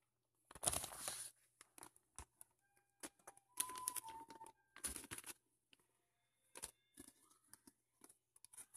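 Hands rubbing and smoothing sticky contact paper over a cardboard box: irregular rustling and crinkling strokes with short pauses between, the longest about half a second in and again around four seconds in.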